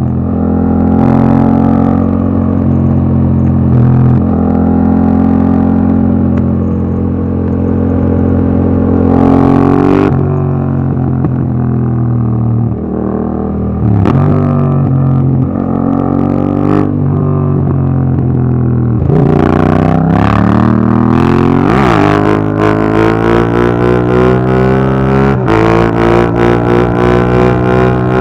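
Yamaha MT-07 parallel-twin engine through an Akrapovic Racing Line exhaust with its dB killer fitted, running on the road. Its pitch rises and falls repeatedly with throttle and gear changes, and it turns choppy and uneven in the last few seconds.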